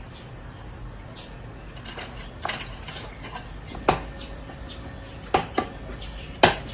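Metal parts and tools being handled: five scattered sharp clanks and knocks, one about four seconds in ringing on briefly like struck metal, with the loudest near the end.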